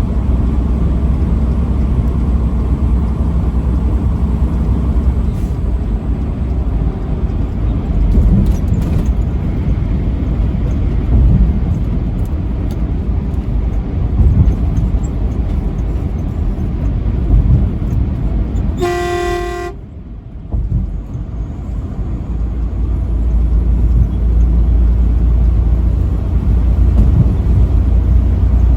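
Steady low road and engine rumble of a truck on the move, with one short truck horn blast, under a second long, about two-thirds of the way through.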